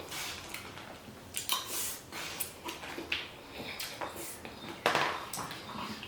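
Eating sounds from a takeout meal: chewing, with scattered clicks and scrapes of utensils against the food container. There are louder bursts about a second and a half in and again near five seconds.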